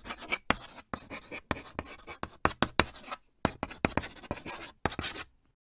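Writing sound effect: a pen scratching across paper in quick, irregular strokes that stop shortly before the end.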